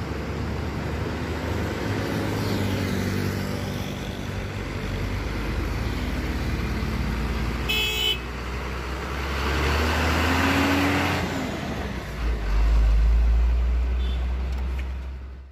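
Hino FG diesel truck driving past, its engine running steadily and loudest as it passes close near the end. A short horn toot sounds about eight seconds in. The sound cuts off suddenly at the end.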